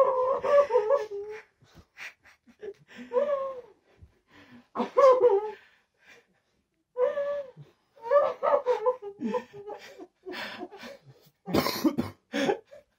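Emotional sobbing and tearful laughter: high-pitched, broken cries, whimpers and gasping breaths in short bursts with pauses between them.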